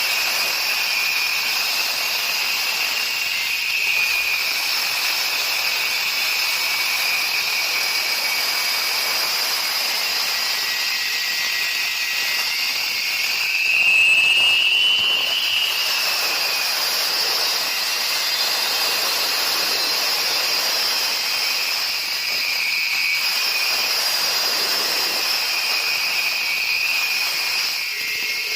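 Concrete cutting machine running steadily with a high-pitched whine. The whine rises in pitch and gets louder for a few seconds about halfway through, then settles back.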